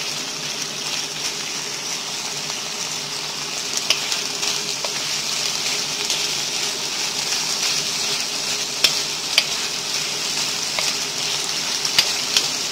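Chicken strips and sliced carrots sizzling steadily in hot oil as they are stir-fried in a pan, with a few sharp clicks now and then.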